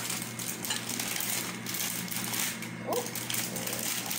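Plastic bag of powdered cake mix crinkling and rustling as the mix is shaken out into a bowl.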